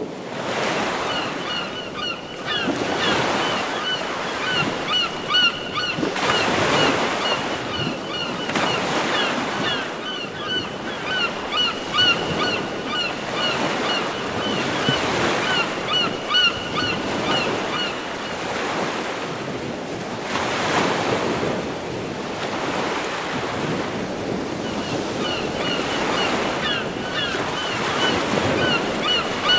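Samsung Galaxy S III nature-sound ringtone: ocean waves rising and falling on a shore, with short high bird chirps repeating over them. The chirps pause for a couple of seconds past the middle, then return.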